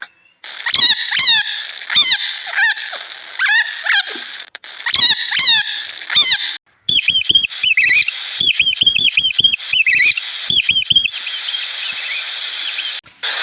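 High-pitched bird chirping calls, repeated again and again. In the first half the calls dip and rise in pitch at a slower pace; in the second half they come faster and higher. Short silent breaks between the pieces mark splices between clips.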